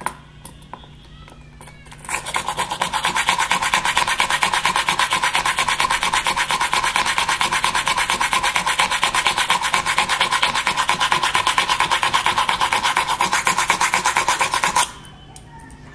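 Hand drill grinding into the Tanjore painting board to bore shallow recesses for stones. The rasping runs in fast, even pulses, starting about two seconds in and stopping abruptly near the end.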